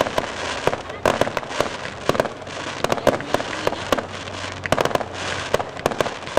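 Aerial firework shells bursting in a fireworks display: many sharp bangs and pops in rapid, irregular clusters, with a steady hiss between them.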